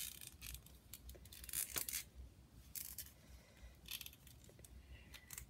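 Faint, scattered rustles and light clicks of plastic action-figure parts being handled and pushed together, a hard fit.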